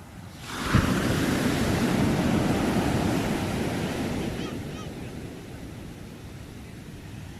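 A single wave breaking: a sudden rush of surf about half a second in, with a thud as it hits, then a hiss that dies away over the following few seconds.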